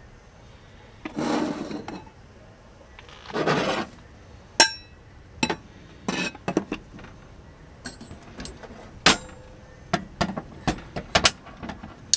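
Small camping lantern being taken apart and reassembled by hand: two longer scrapes of metal parts turning against each other, then a run of sharp metal and glass clicks and clinks as the wire guard cage and glass globe are handled, one clink ringing briefly about four and a half seconds in.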